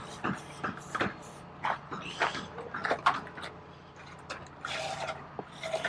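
Paintbrush working antifoul paint onto a boat's hull in short, irregular strokes, and dipped into the paint tin.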